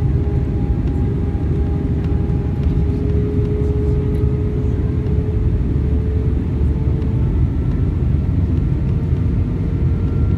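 Cabin noise inside an Airbus A319-131 in flight: a steady deep rumble of airflow and its IAE V2500 engines, with a thin engine whine that slowly rises in pitch. A second, higher whine joins about seven seconds in.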